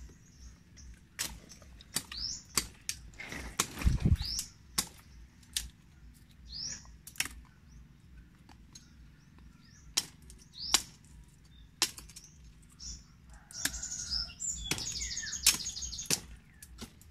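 Sharp, irregular knocks of a bolo (itak) chopping and prying small sisi oysters off mangrove roots, roughly one a second, with short high rising bird chirps between them.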